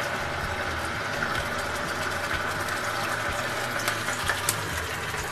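Ground onion paste sizzling in hot oil in a nonstick frying pan, a steady hiss, with a few sharp ticks about four seconds in.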